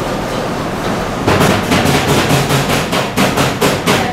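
A steady background hum, then, a little over a second in, a rapid run of sharp knocks or taps, about five a second.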